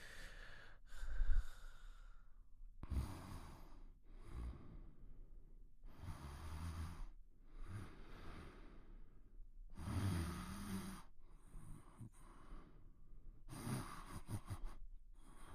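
Quiet snoring: slow, heavy breaths of a sleeper, each lasting a second or two and coming about every two to three seconds, one of them with a low buzzing snore about ten seconds in.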